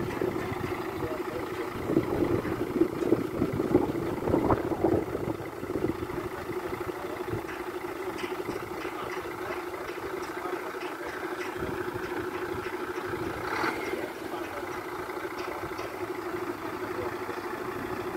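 Heavy skip-loader truck's diesel engine idling steadily, with a stretch of louder uneven knocking about two seconds in that lasts a few seconds.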